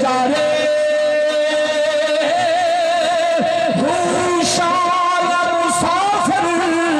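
A man singing a verse into a microphone in long drawn-out notes with a wavering vibrato, amplified over a public-address system.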